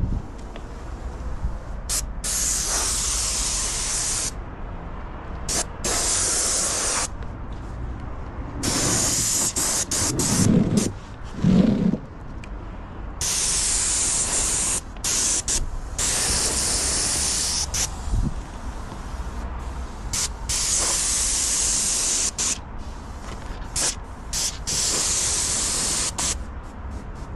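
Airless paint spray gun spraying in repeated stretches of one to two seconds: a hard, high hiss that starts and cuts off sharply as the trigger is pulled and released. Under it runs a steady low rumble, and two short dull bumps come about halfway through.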